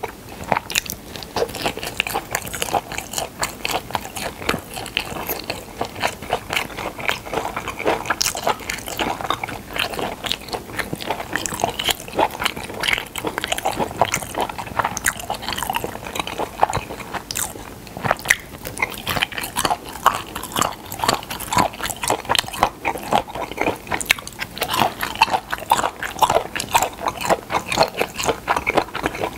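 Chewing raw spoon worm (gaebul): a steady run of wet, crunchy bites and chews, many small crackles a second.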